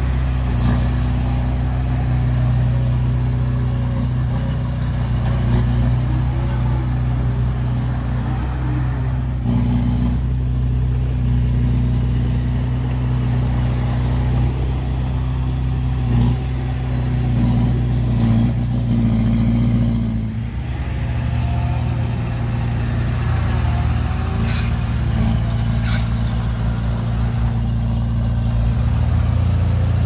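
Heavy diesel engine running steadily at a low, even pitch, with slight rises and falls in speed. Two short clicks sound near the end.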